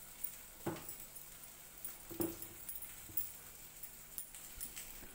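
A few light knocks of dishes being handled, one under a second in and another just past two seconds, with faint clicks between.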